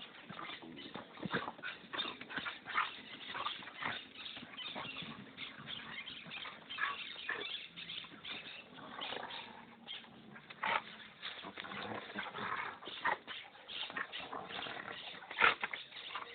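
Two dogs play-fighting: an irregular run of short growls, yips and scuffles, with one sharper, louder cry about a second before the end.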